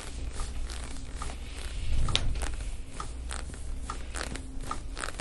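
Irregular short creaks and clicks, a few a second and loudest about two seconds in, from the padded chiropractic table and hand-on-skin contact as the chiropractor presses hard into a deep knot in the patient's upper back; a low steady hum runs underneath.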